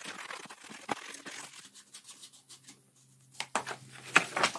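Scissors cutting a paper insole template, with the paper rustling and crinkling and a few sharp snips about three and a half to four and a half seconds in.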